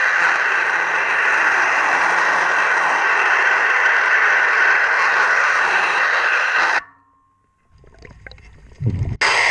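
Steady underwater scraping noise of a ship's propeller being cleaned, which cuts off abruptly about two-thirds of the way through. A short low thump comes in the quiet gap, and the scraping starts again just before the end.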